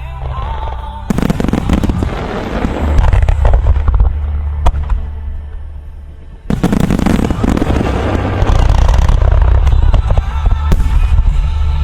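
Fireworks display: a volley of shells bursting with dense crackling about a second in, fading away, then a second sudden, loud volley a little past halfway that keeps crackling, over a low rumble.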